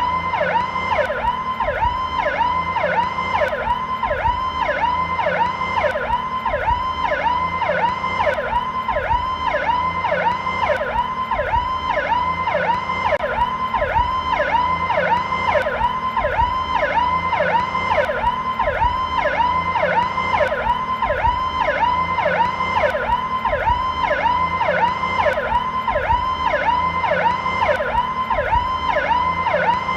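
Federal Signal PowerCall electronic police siren running in its slow mode: a loud, steady cycle of pitch sweeps up and down, about two a second, without a break.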